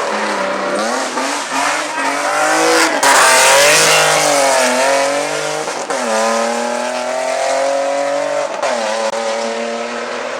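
Race car engine revving hard as it accelerates up through the gears. The pitch drops at each shift, about three, six and eight and a half seconds in. It is loudest around three to four seconds in.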